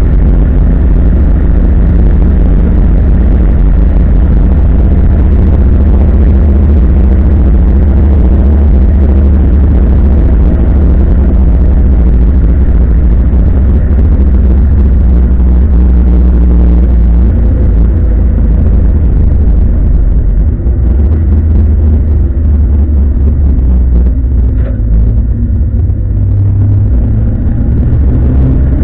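Opel Commodore A race car's straight-six engine running hard under load, heard from inside the cabin as a loud, steady drone. About twenty seconds in, the engine note drops and wavers as the car slows into a corner.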